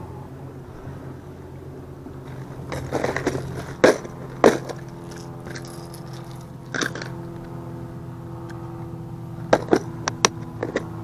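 Hard plastic lures clattering in a clear plastic tackle box as it is handled, with several sharp clicks a few seconds in. Near the end comes a quick run of sharp clicks as the lid is pressed shut. A steady low hum runs underneath.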